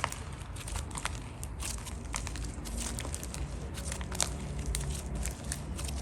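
Slime being squished and pressed by hand: a steady run of small sticky pops and crackles, several of them sharper clicks.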